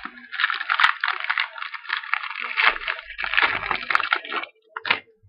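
Trading-card pack being torn open, its wrapper crinkling and crackling in the hands for about four seconds, with a couple of sharp snaps along the way.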